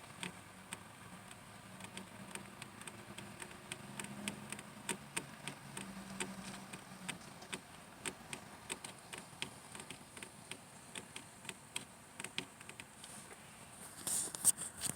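Faint, irregular ticking clicks, a few a second, over a low background, with a short louder rustling burst near the end.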